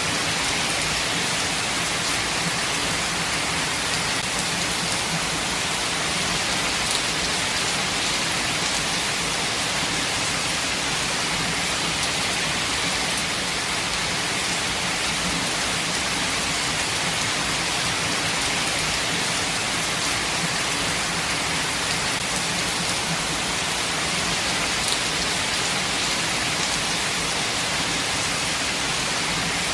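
Steady rainfall, an even hiss of falling rain with a few faint individual drop ticks scattered through it.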